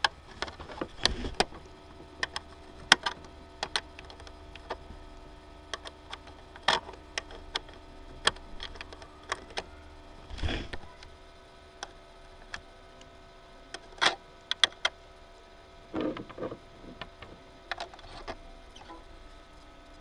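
Irregular sharp clicks and knocks, one every second or so, with a heavier knock about halfway through, over a faint steady hum. These are the sounds of handling at the computer while a USB flash drive is fitted into its port.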